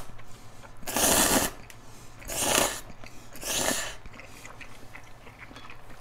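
A person slurping instant ramen noodles in shrimp broth, three slurps about a second apart, then quiet chewing near the end.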